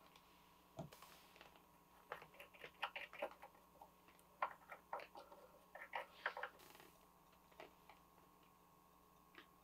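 Faint, scattered light clicks and taps of small brass wire pieces and a hand tool against a jeweller's wooden bench pin, a dozen or so irregular ticks bunched in the middle few seconds.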